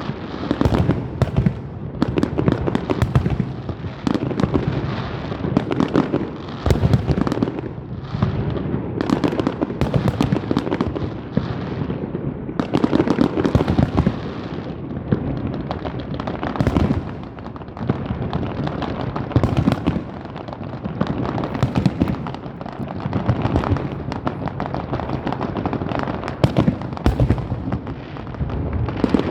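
A fireworks display: a dense, continuous run of bangs and crackling bursts, with short lulls between volleys.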